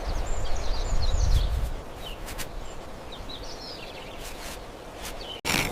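Outdoor ambience of birds chirping over a steady background hiss, with a low rumble in the first two seconds. The sound cuts off abruptly near the end.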